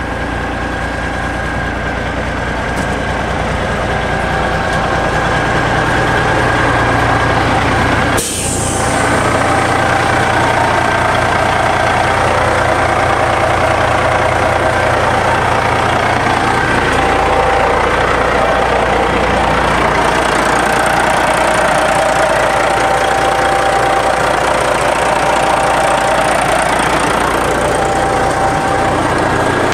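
1996 Ford L9000 log truck's diesel engine idling steadily, with one sharp click about eight seconds in.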